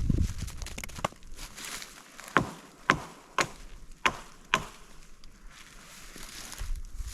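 Wood being chopped: six sharp, separate strikes, unevenly spaced about half a second apart, starting about a second in. A low rumble fades out in the first second.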